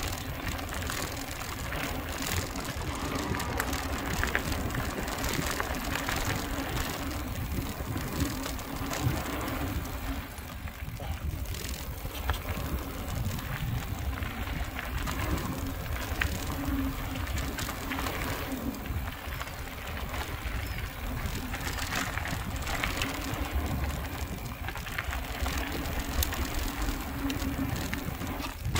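Mountain bike riding down a gravel forest trail, heard from a handlebar-mounted camera. The tyres crunch over loose stones and the bike rattles, with many small ticks and a steady low rumble underneath.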